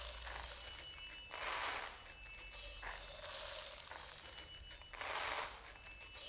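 A stream of rice grains pouring from a swinging pendulum onto red slit-mouthed bells and small bowls. It patters in surges that come and go twice, about three and a half seconds apart, over thin ringing bell tones.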